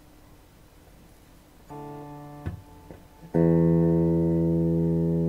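Electric guitar through a combo amplifier: faint amp hum, then a note picked about two seconds in, two short sharp clicks, and a loud chord struck just past three seconds that rings on and slowly fades.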